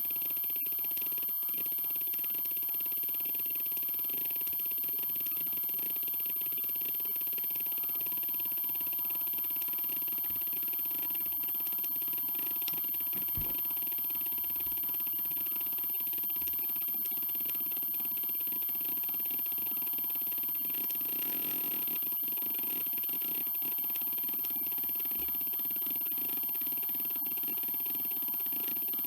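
Hitachi Deskstar 7K80 80 GB IDE hard drive seeking under HDMotion: the head actuator makes a dense, continuous stream of fine ticking and buzzing over the steady spin of the platters.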